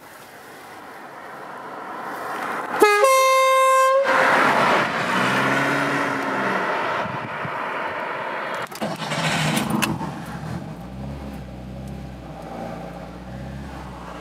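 A 1983 VW Jetta approaches and passes, its engine and tyre noise swelling. As it passes it gives a single blast of about a second on its aftermarket compressor-fed air horns: one loud steady tone that slides up briefly at the start. The car's noise then fades as it drives away, and after that a steady low hum is heard from inside the car.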